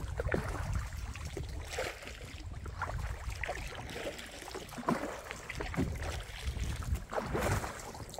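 Kayak paddles dipping into a river: irregular small splashes and drips of water, over a steady low rumble.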